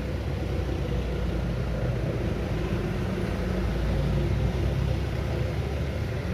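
City street traffic: motor vehicle engines running close by over a steady traffic rumble, growing louder about four seconds in and then easing off.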